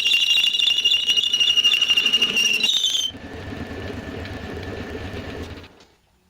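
Homemade belt sander running with a loud, steady high-pitched squeal. About three seconds in the squeal stops and the machine runs on with a quieter hum, then cuts off shortly before the end.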